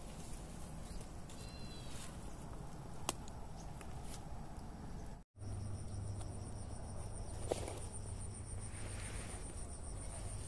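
Faint rustling and a few light clicks among dry bamboo litter. From about halfway on there is a steady high-pitched insect drone over a low hum.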